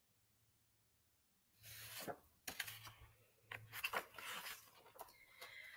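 Pages of a picture book being turned and handled, a series of irregular paper rustles and scrapes starting about a second and a half in.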